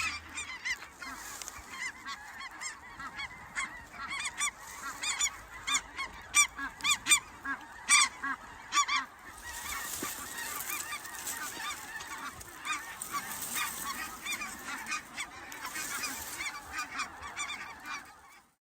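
A large flock of snow geese honking continuously, many overlapping short calls, with a run of louder, closer calls in the middle.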